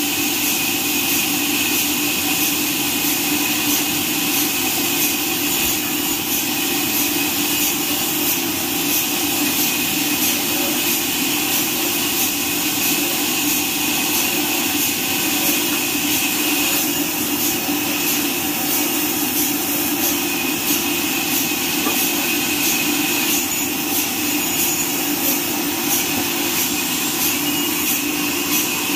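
Horizontal band sawmill cutting through a neem log: a steady, high-pitched machine noise of the running band blade and its motor, with a faint regular ticking.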